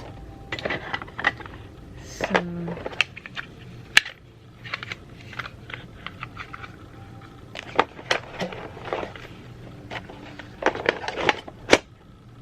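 Video doorbell parts and plastic packaging being handled: irregular clicks, taps and crinkly rustling, with a sharp click about four seconds in and a loud cluster of clicks near the end.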